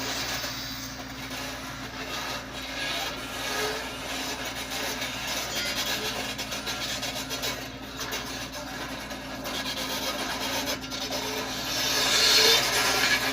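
Volvo EC210D hydraulic excavator running steadily, with rough rubbing and scraping sounds over it that grow louder near the end.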